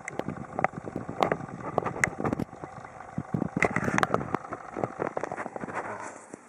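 Irregular clicks and knocks of objects being handled close to the microphone, a spray can and a small plastic model car body, with no steady spray hiss.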